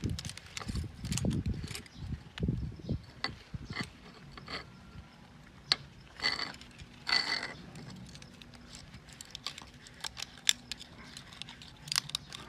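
Hand work on metal parts: scattered clicks and knocks, low thumps in the first few seconds, and two short rasping noises about six and seven seconds in.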